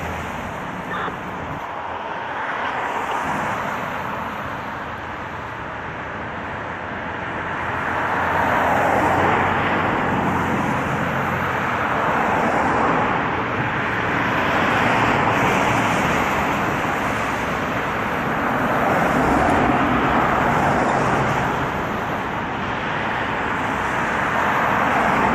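Road traffic: vehicles passing by, the sound swelling and fading every few seconds.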